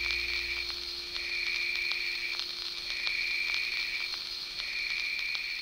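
A high, pulsing chorus of rapid chirps that swells and fades about every two seconds, with a low hum dropping away within the first second.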